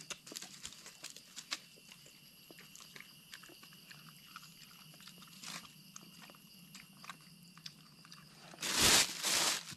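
A dog chewing food, a run of small irregular clicks. Near the end two loud bursts of noise, close together, drown it out.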